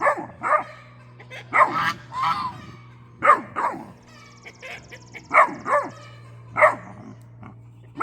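Great Dane puppy barking and yowling in short pairs, about ten calls in all, one of them a longer, wavering, whiny call about two seconds in. A steady low hum runs underneath.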